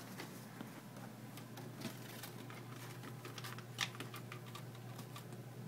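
Light, irregular clicks and taps from handling small hard parts, with sharper clicks about two seconds in and again near four seconds, over a faint steady low hum.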